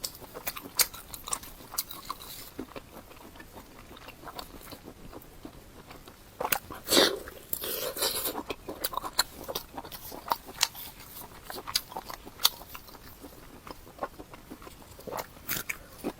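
Close-up chewing and biting of food: wet mouth clicks scattered irregularly, with a louder, longer mouth noise about seven seconds in.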